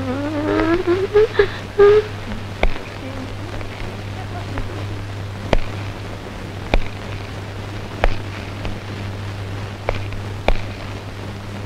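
The end of a dramatic film music phrase, its pitch wavering and rising, fades out within the first two seconds. Then comes a steady low hum with scattered sharp clicks and pops from an old film soundtrack.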